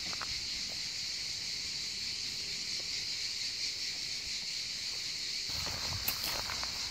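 A steady, high chorus of insects buzzing without a break. About five and a half seconds in, a low rumble and a few faint clicks join it.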